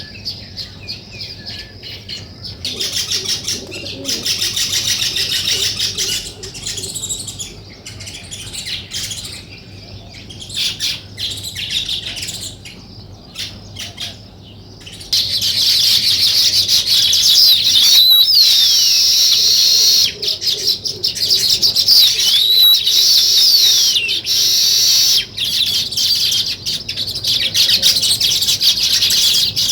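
Sparrows chirping busily, many short calls overlapping without a break; the chirping grows much louder and denser about halfway through.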